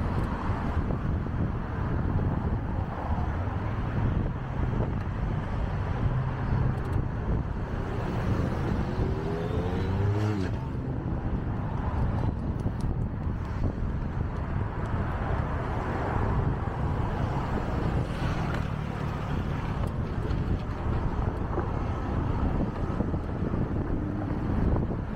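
City street traffic heard from a moving bicycle: a steady low rumble of passing vehicles and road noise. About eight seconds in, one vehicle's engine speeds up, its pitch rising for a couple of seconds and ending with a click.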